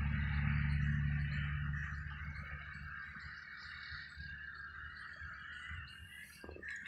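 Trackside outdoor ambience: a steady high trilling chorus of small animals, with a low rumble that dies away about two seconds in.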